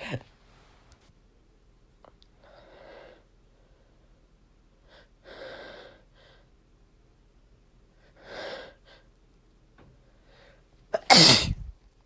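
A few audible breaths in build-up, then one loud, chesty sneeze near the end. The sneezing is set off by dust from cleaning.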